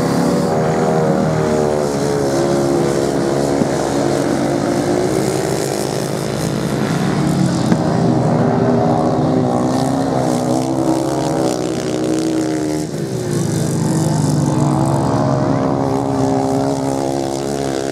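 Several racing motorcycle engines running together, each one's pitch rising and falling as the riders open and close the throttle through a bend.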